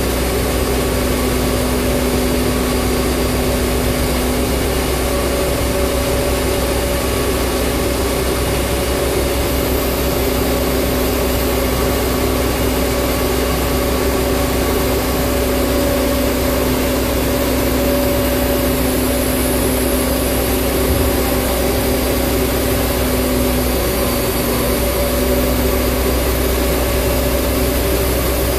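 Large mobile crane's diesel engine running steadily while it holds and hoists a heavy load: a constant drone with a low rumble and a steady hum, its pitch wavering briefly near the end.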